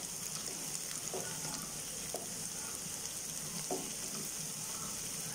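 Chopped onions and green chillies sizzling steadily in hot oil in a nonstick pan as they are sautéed, stirred with a wooden spatula that touches the pan faintly a few times.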